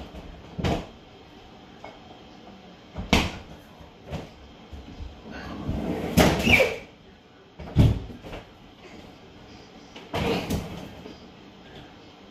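Kitchen knocks and clatter as things are put away, among them the refrigerator door being swung shut: separate sharp knocks a few seconds apart, with a longer rattling clatter about six seconds in.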